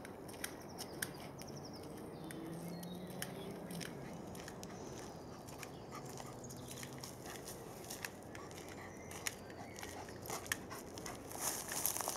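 Footsteps on a woodland dirt path with scattered small clicks of twigs and dry leaves underfoot, against quiet outdoor ambience. The steps get closer and louder near the end.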